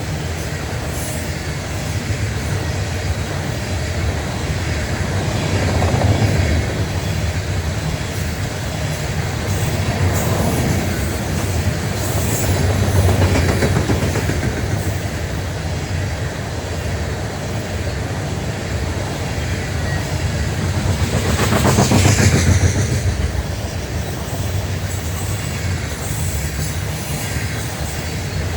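Norfolk Southern freight train's cars rolling past: a steady rumble of steel wheels clattering over the rails, swelling louder three times.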